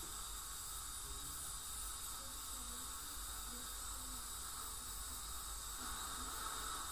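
Ultrasonic dental scaler running with its water spray, together with the hiss of the suction: a steady high whine over an even hiss as tartar is scaled off the teeth.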